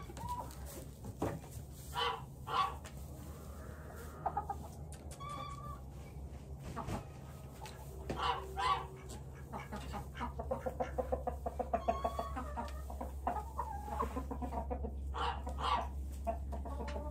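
Chickens clucking, with roosters crowing now and then; quick runs of short clucks pile up in the second half.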